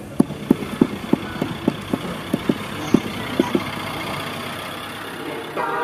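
A run of hollow knocks, about three a second, for the first three and a half seconds over a steady engine-like hum, then only the steady hum.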